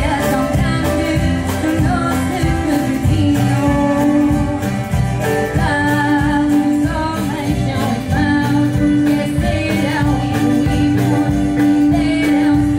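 A group of cavaquinhos strummed in a steady rhythm, with voices singing a song over them.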